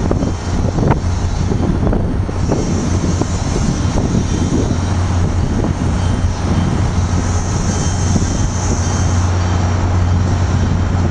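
Diesel passenger train pulling out, its locomotive engine running with a steady low hum. Wheels clatter over the rails during the first few seconds.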